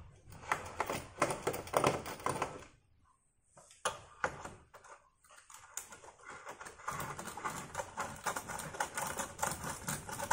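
A small screwdriver turning loose screws out of a laptop's plastic base, giving quick irregular clicks and light scraping, with a short pause about three seconds in and faster, denser clicking from about six seconds on.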